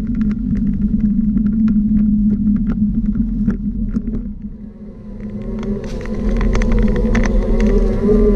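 A steady low rumble with frequent small knocks and rattles, as from a camera riding on something rolling over paving. It dips briefly just before five seconds in, then grows louder with a wavering whine over the rumble.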